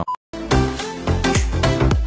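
Electronic dance music with a steady beat, about four beats a second, starting after a brief gap.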